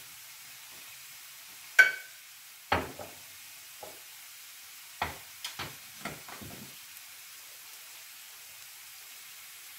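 Chopped onion and grated carrot frying gently in olive oil in a pan, a faint steady sizzle. Over it come a series of short knocks and clinks, the loudest about two seconds in with a brief ring, then a quick cluster of lighter knocks before it settles back to the sizzle alone.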